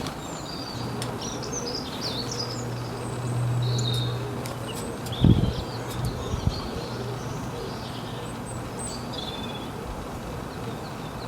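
Several small birds chirping and twittering in quick, high notes. A low steady hum runs under the first few seconds, and a low thump about five seconds in is the loudest sound, with a smaller one about a second later.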